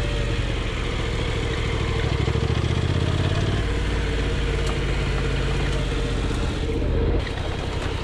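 Honda NC750X's parallel-twin engine running steadily; its note shifts about two seconds in and drops about seven seconds in.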